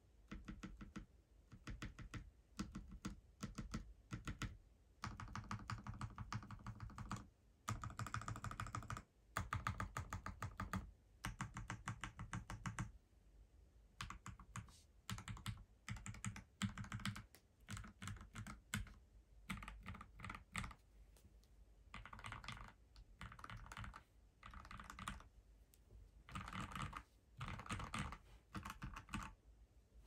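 Typing on a modded FL-Esports MK870 tenkeyless mechanical keyboard with Aquaking V3 switches and Keysterine keycaps: quick runs of key clacks in bursts of a few seconds, with short pauses between.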